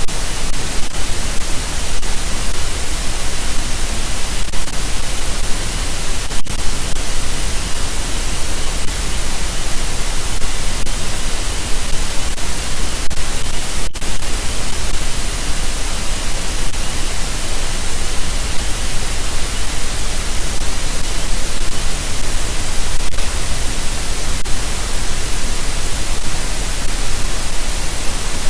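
Loud, steady static hiss from a nest camera's audio feed, even across the whole range, with no distinct sound standing out above it.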